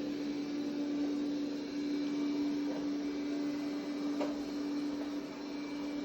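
Steady machine hum with one held tone over a noisy whirr, and a faint click about four seconds in.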